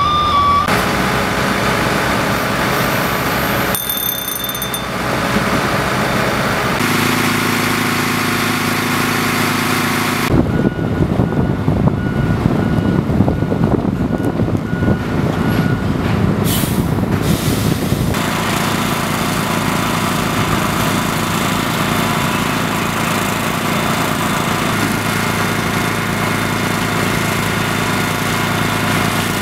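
Heavy diesel truck engines running, a continuous drone that shifts at each cut. The sound turns rougher and louder from about 10 to 18 seconds, then settles into a steady engine hum.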